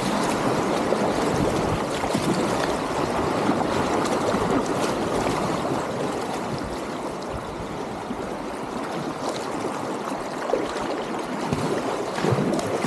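Shallow river rapids rushing and splashing right at the bow of a packraft as it runs through them, easing a little in the middle and louder again near the end.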